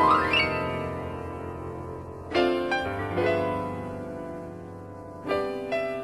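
Background piano music: a quick upward run, then chords struck about every three seconds and left to ring out.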